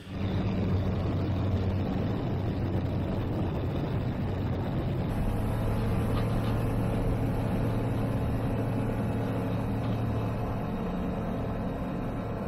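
Light aircraft engine at full take-off power during the take-off roll: a steady propeller-driven drone with wind rush. For the first few seconds it is a Jabiru 2200A four-cylinder. About five seconds in it changes to a Zonsen C100, a clone of the Rotax 912 ULS flat-four, with a different set of engine tones.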